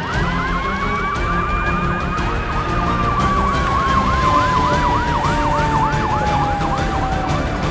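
Two emergency vehicle sirens sounding together: a fast yelp sweeping up and down about twice a second, and a slow wail that rises, holds, then slowly winds down. Both cut off near the end.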